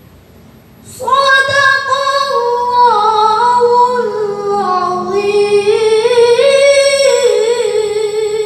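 A child qori's high voice reciting the Quran in the melodic tilawah style, unaccompanied. It comes in about a second in and carries long ornamented notes that waver and step up and down, sliding lower near the end.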